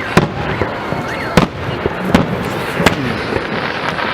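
Fireworks salute: aerial shells bursting with sharp bangs, four in about three seconds, over a steady crackle and hiss.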